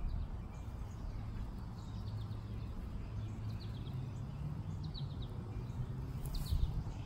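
Faint bird chirps, short high notes in small groups every second or so, over a steady low rumble.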